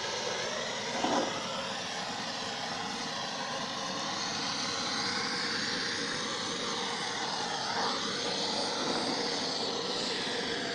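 Handheld gas blowtorch burning with a steady, even hiss as its flame is played over the inside of an empty wooden beehive box to lightly scorch and clean it.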